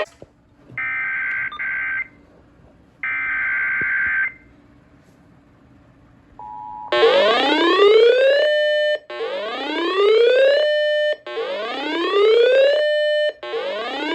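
Emergency Alert System SAME header: two short, harsh digital data bursts about a second apart, then a brief moment of the two-tone attention signal. After that, a loud electronic whooping alarm repeats four times about two seconds apart, each whoop rising in pitch and then holding. Together these open a new flash flood warning broadcast.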